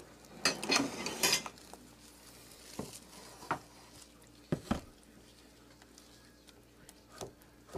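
Clatter and light knocks as a pot of soap batter and a plastic-lined wooden loaf mold are moved about on a countertop: a burst of clatter about half a second in, then a few single knocks a second or so apart.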